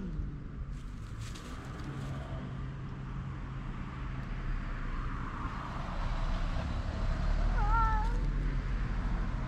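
Stray cat in a standoff giving one short, wavering yowl about three-quarters of the way in, over a steady low rumble.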